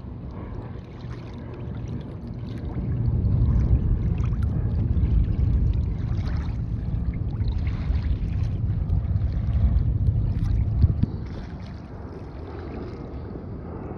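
Wind buffeting the microphone as a low rumble, over small waves lapping and splashing against a kayak's hull. The rumble swells about two or three seconds in and eases off near eleven seconds.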